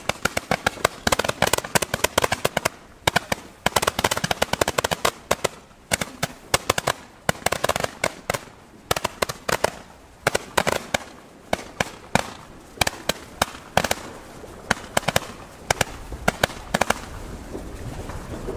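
Fireworks crackling and popping in dense, rapid clusters of sharp cracks, thinning out over the last few seconds.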